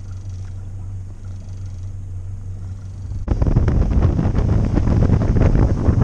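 A boat's outboard motor idles with a steady low hum. About three seconds in, the boat gets under way and a much louder rush of wind and water takes over.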